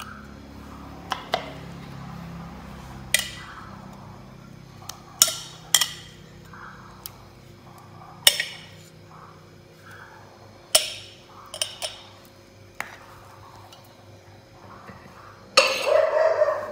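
Metal spoon clinking and knocking against a plastic tub of radish kimchi: about ten sharp, irregular clinks. A brief loud voice near the end.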